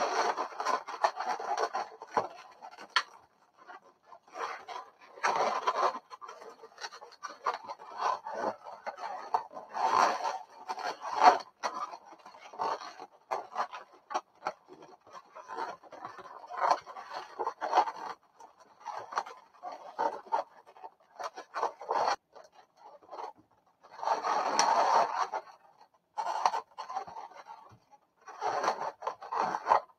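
Inflated latex twisting balloons rubbing and squeaking against each other as they are pushed, squeezed and threaded through a woven balloon heart. The sound comes in irregular bursts with short pauses.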